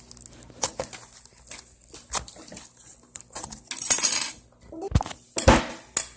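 Small hard objects clinking and clattering as they are handled, with a loud rustle about four seconds in and two dull thumps just after.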